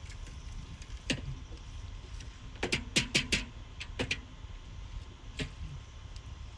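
Cut bamboo tubes knocking and clicking as they are handled and filled with chicken: scattered sharp knocks, with a quick cluster of four about three seconds in, over a low steady rumble.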